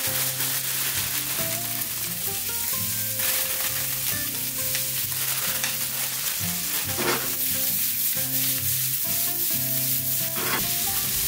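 Pork and vegetables sizzling in a frying pan over a gas flame as bean sprouts are tipped in and the pan is tossed; the sizzle flares up briefly three times.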